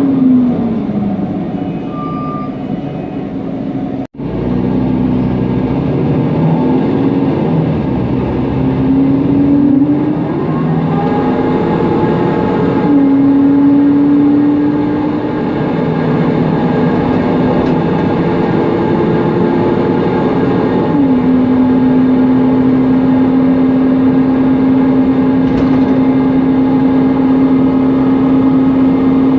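Mercedes-Benz Conecto NGT city bus heard from inside on the move, with its CNG engine and noisy cooling fan running. The engine note falls as the bus slows, then climbs and drops back several times as it pulls away through the automatic gearbox's upshifts. It settles into a steady drone for the last third. The sound cuts out briefly about four seconds in.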